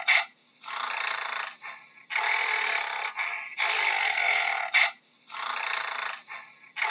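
A gorilla making a string of breathy, pitchless sounds, each about a second long, with short pauses between them.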